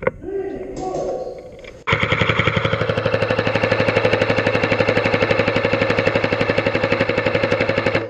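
Airsoft rifle firing one long full-auto burst: a rapid, even stream of shots with a steady mechanical whir under it. It starts about two seconds in and stops just before the end.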